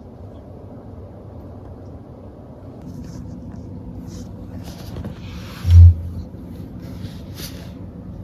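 A single dull, low thump a little under six seconds in, over a steady low hum and faint rustling.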